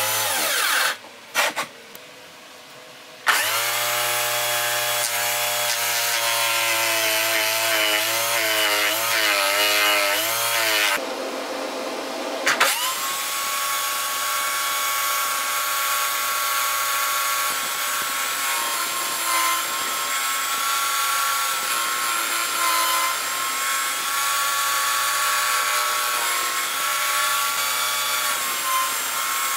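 Electric drill mounted in a plywood stand, driving a homemade 18 cm sanding disc: the motor starts about three seconds in and runs with a steady whine. Its pitch wavers as workpieces are pressed against the disc, over a scratchy sanding rasp.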